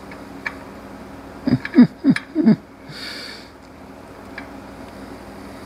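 A person's voice making four short sounds in quick succession, each falling in pitch, followed by a brief breathy exhale.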